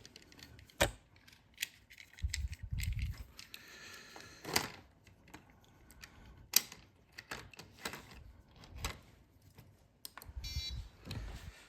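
Scattered sharp clicks and clacks of diecast toy cars and plastic track pieces being handled, with short low rumbles between them. A brief high buzzing tone sounds near the end.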